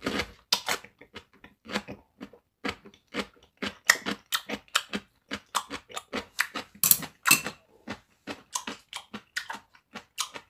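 Close-miked crunching and chewing of a cube of kkakdugi (radish kimchi), an irregular run of crisp crunches a few times a second. The radish is still firm and barely fermented.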